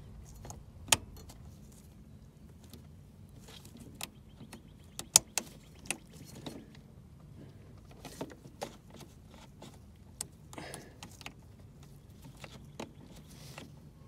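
Scattered sharp plastic clicks and small knocks from hands working the shifter cable's plastic end fitting and its retaining clip, over a faint steady low hum.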